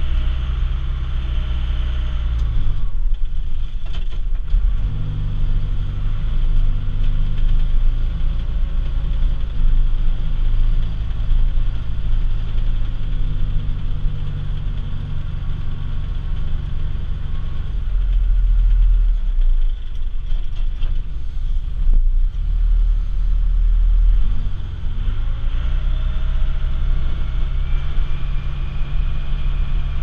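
Case 580 backhoe's diesel engine running under load while plowing snow, heard from inside the cab. The engine note drops about three seconds in and climbs back up near the end, with a heavy low rumble for several seconds past the middle.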